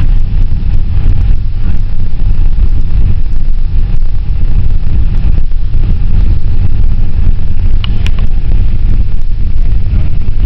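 Passenger van driving, heard from inside the cabin: a loud, steady low rumble of engine and road noise, with a brief sharp click about eight seconds in.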